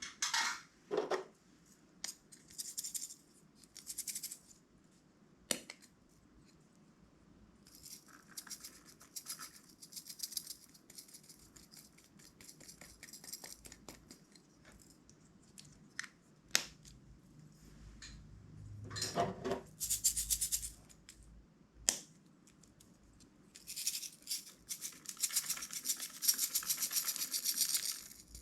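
Intermittent rattling and crackling of small loose pieces being handled and shaken, with scattered sharp clicks. The longest, densest rattle comes in the last few seconds.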